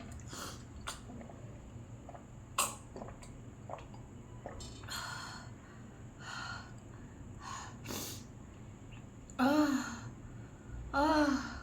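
A woman breathing hard and sniffing from the burn of extremely spicy noodles, with two short, loud voiced outbursts near the end.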